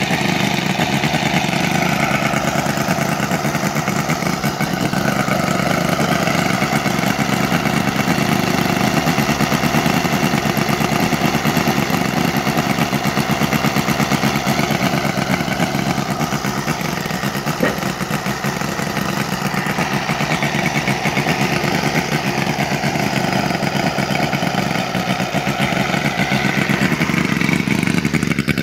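Elmer Wall 50cc four-cylinder four-stroke flathead model engine running steadily on electronic ignition, with a rapid, even firing beat from its exhaust.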